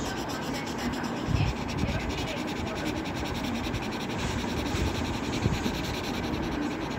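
Green felt-tip marker scribbling back and forth on paper while colouring in an area, a steady scratchy rubbing, with a couple of low bumps.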